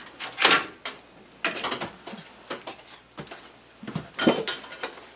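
Irregular knocks, clatters and rustles of objects being moved and handled by hand, with a louder cluster of clatter about four seconds in.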